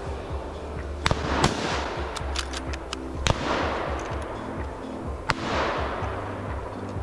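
Hunting rifle shots in woodland: two close together about a second in, one at about three seconds and one just after five seconds, each followed by a long rolling echo. Background music plays underneath.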